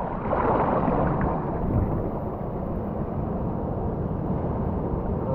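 Seawater washing over and draining off intertidal rocks right at the microphone: a louder rush of water in the first second, then a steady wash and gurgle.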